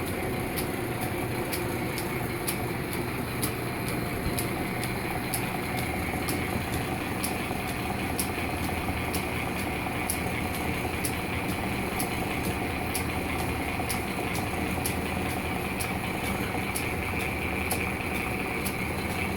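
Restored Champion camelback drill press running on its 1.5 horsepower Delco motor: a steady hum, with a regular light tick from the steel lacing that joins the drive belt as it passes over the smaller pulley.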